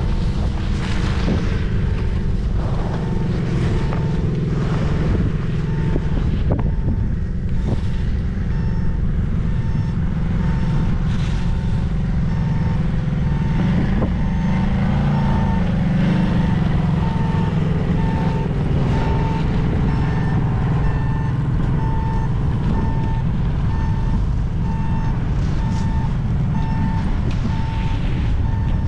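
Steady rush of wind over the microphone on a downhill ski run, with scraping streaks from the skis. An electronic beep repeats about once a second from about six seconds in to near the end.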